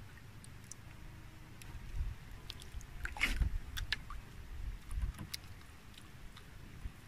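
Low, uneven rumble of wind and water around a small outrigger boat, with scattered small clicks and rustles from handling a needlefish and fishing line as it is unhooked. There is a brief louder rustle about three seconds in.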